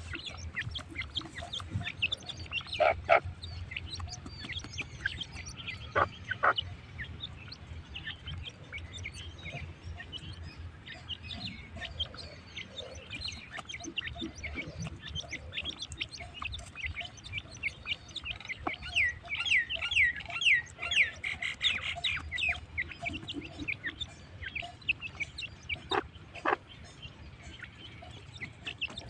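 Teetar (francolin partridges) calling: a busy stream of short, quick chirps and clucks, thickest about two-thirds of the way through, with a few louder sharp calls near the start and again near the end.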